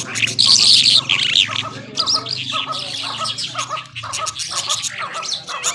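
Irani Mashadi lark (jhal) singing: a loud run of rapid, high warbling for about the first two seconds, then quieter repeated short chirps, with a low hum underneath until about four seconds in.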